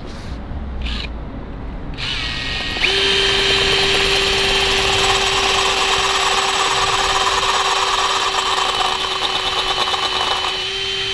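Cordless drill boring through a small threaded metal stud held in locking pliers, widening the cross-hole for its retaining pin. A couple of short starts come first. About two seconds in, the motor winds up to speed and then runs steadily with a high whine over the grinding of the bit in metal, which eases a little near the end.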